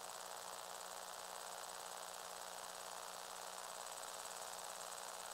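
Lego Technic crane's small electric winch motor and plastic gears running, a thin, steady, high-pitched whine with a fine rapid ticking, as the hook cable is paid out or wound in.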